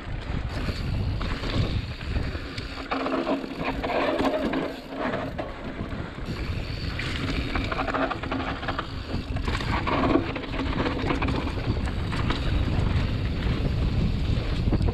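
Mountain bike descending a dirt woodland trail: wind buffeting the microphone over the rolling noise of knobbly tyres on dirt and the bike rattling over bumps.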